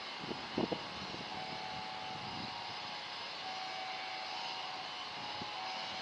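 Steady rushing noise of jet aircraft engines running at a distance, with a faint whine, and a few short low thumps about half a second in.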